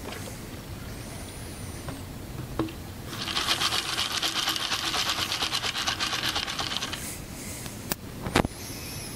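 Sample tube of coarse aggregate being settled into the water-filled measuring tube and oscillated to release trapped air: a rapid rattle that starts about three seconds in and lasts about four seconds. Two sharp knocks follow near the end.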